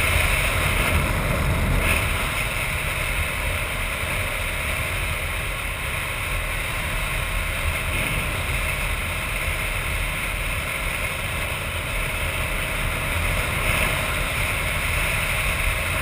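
Motorcycle riding steadily along a gravel road: wind rushing over the camera's microphone on top of engine and tyre noise.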